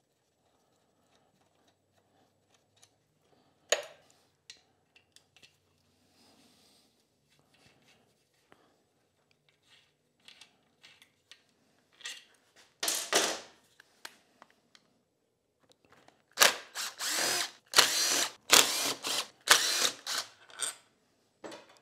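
Cordless drill/driver spinning out the screws of a motorcycle engine's flywheel cover in several short bursts over the last few seconds. Earlier there are scattered light clicks and knocks of hand tools on the engine.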